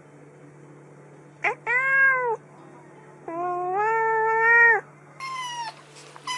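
Adult calico cat meowing twice, a short call and then a long drawn-out one. A kitten then gives a short, higher-pitched meow.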